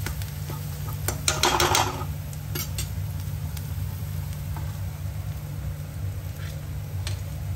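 Metal spatula stirring and scraping onion-tomato masala as it fries in oil in a kadhai, with a run of scraping strokes about a second in and single clicks later. A low steady hum runs underneath.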